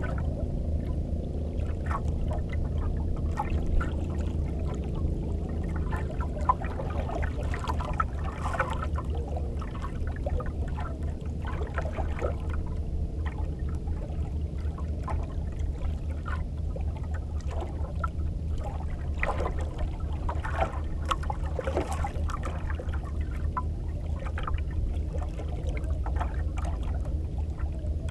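Sea water splashing and sloshing against the hull of a small fishing boat in irregular small splashes, over a steady low rumble and hum.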